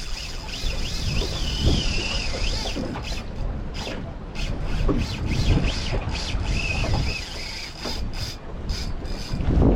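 Fishing reel drag squealing in a wavering pitch as a hooked shark pulls line, strongest in the first few seconds and again briefly later, over low wind buffeting on the microphone.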